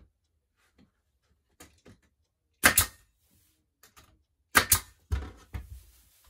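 Pneumatic nailer, fed by an air hose from a compressor, firing twice about two seconds apart, each shot a sharp double click as a nail is driven into a wood board. Quieter knocks follow the second shot.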